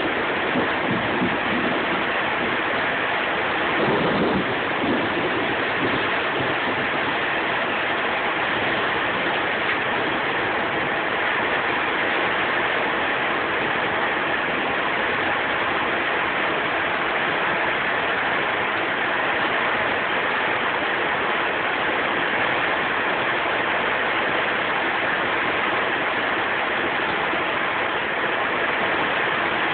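Heavy thunderstorm rain falling steadily as a dense, even hiss, with a brief low rumble about four seconds in.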